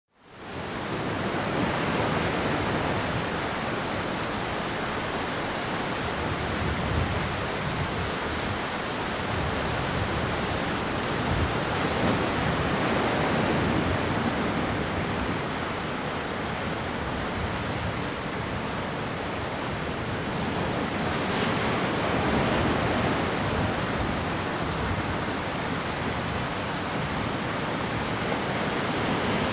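Steady rushing noise of heavy water, fading in within the first second and swelling gently in level now and then.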